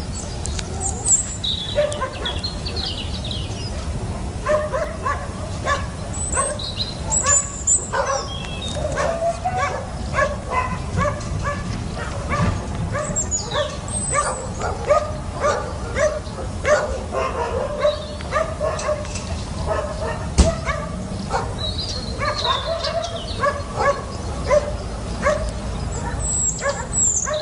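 Dogs barking and yipping in short, repeated high calls, with some higher yelps mixed in. One sharp knock about two-thirds of the way through.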